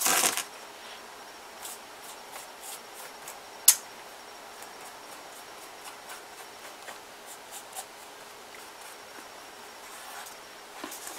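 Paintbrush dabbing and stroking flour-and-water paste onto newspaper paper mache: a louder rustle at the start, then short faint brushy strokes, roughly two a second, with one sharper click about four seconds in.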